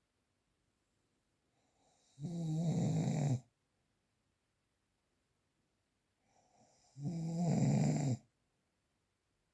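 Snoring: two snores about four and a half seconds apart, each a low pitched snore lasting just over a second that grows out of a fainter intake of breath, with near silence between them.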